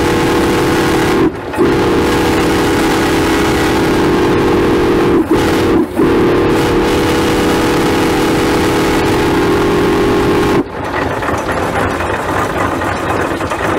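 Steam whistle on a 1920 Huber steam traction engine blowing a steady, several-note chord in four blasts: two long ones, a short one, then a long one that cuts off about eleven seconds in. After it the engine is heard running with hissing steam.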